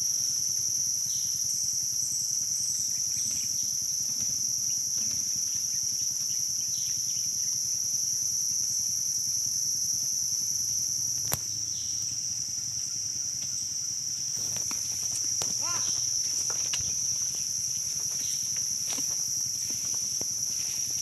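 Insects droning steadily in the surrounding vegetation, two continuous high-pitched tones that never break, with a single sharp click about eleven seconds in.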